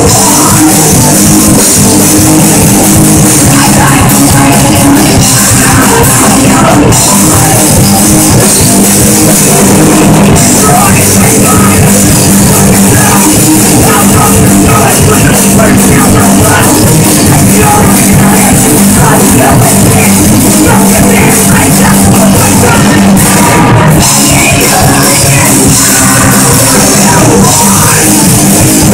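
Live rock band playing loud: distorted electric guitars and a pounding drum kit with sung vocals.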